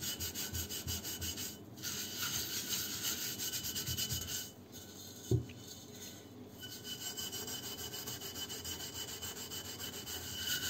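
Steel wool scrubbing the burnt bottom of a metal teapot coated in cleaning paste, in quick, light back-and-forth strokes. The scrubbing pauses a little after four seconds, with a single knock, then resumes.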